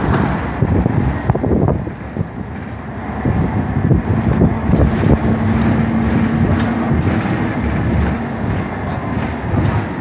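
City transit bus heard from inside the cabin while riding: engine and road noise with clicks and rattles. A steady hum holds for a couple of seconds in the middle.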